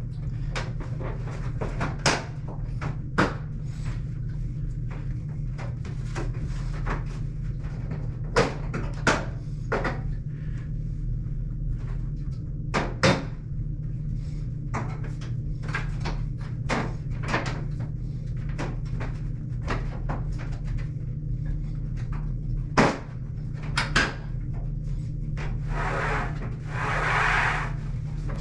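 Irregular knocks and clicks of a dryer's metal front panel and parts being handled and fitted into place, over a steady low hum, with a longer scraping noise near the end.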